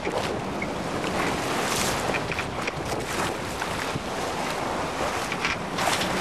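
Sailing yacht moving under sail through open sea: water rushing and splashing along the hull in surges, with wind buffeting the microphone.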